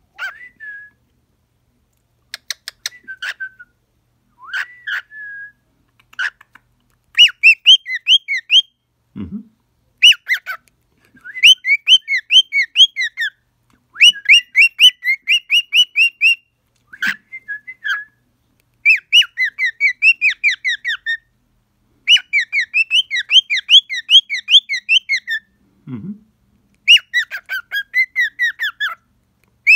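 Cockatiel chattering at its own reflection in a small mirror: bouts of quick, sharp chirps, several a second, with short pauses between. Before the chatter come a few separate short whistles in the first seconds, and two soft low thumps are heard, one about nine seconds in and one near the end.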